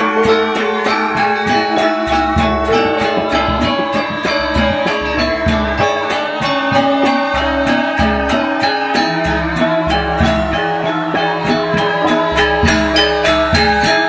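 Balinese gamelan ensemble playing live: hand-struck kendang drums, bamboo suling flutes and bronze metallophones. Bright strikes keep a fast, even pulse over held ringing tones, with deep drum beats coming and going.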